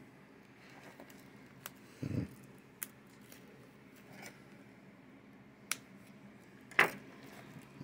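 Opening a shrink-wrapped Blu-ray case with a knife: scattered light clicks and plastic rustling, a soft thump about two seconds in, and a sharp click near the end.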